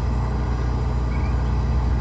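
John Deere 245G hydraulic excavator's diesel engine running with a steady low rumble while the machine works.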